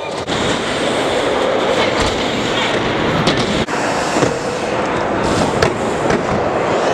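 Wheels rolling over skatepark ramps in a steady rumble, with several sharp knocks from landings or wheels hitting ramp edges.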